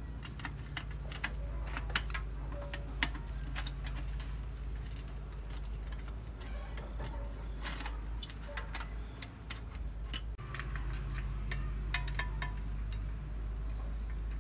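Scattered light metal clicks and ticks, irregularly spaced, from hands working a rusty bicycle's chain, crank and rear hub, over a steady low hum.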